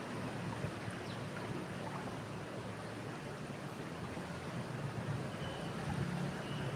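Steady rush of flowing river water, an even noise without breaks.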